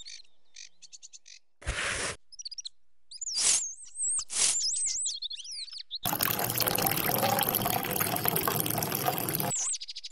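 Birds chirping with a few short noisy bursts, then, about six seconds in, water pouring from a plastic bottle into a small cup for about three and a half seconds.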